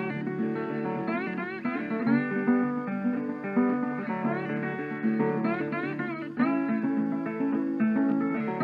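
Background music: plucked guitar with sliding notes.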